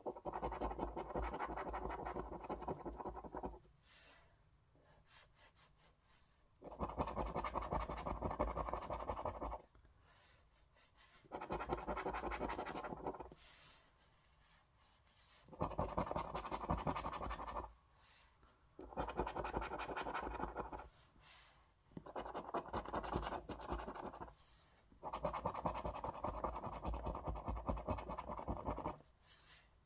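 A coin scraping the scratch-off coating from a lottery scratchcard. It comes in about seven bouts of a few seconds each, with short pauses between them.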